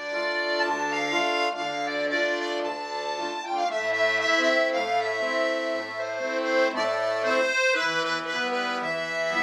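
Accordion music with a sustained melody over an oom-pah accompaniment: a low bass note a little more than once a second, alternating with chords.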